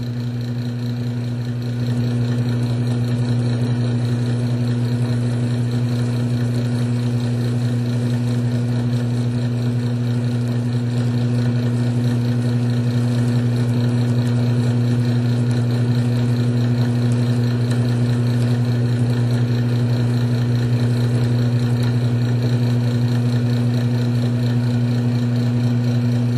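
Electric drive motor of a cross-axis lubricant test machine humming steadily under load, a little louder from about two seconds in. There is no squeal or grinding from the test bearing, which is still lubricated by Bitron with water mixed in.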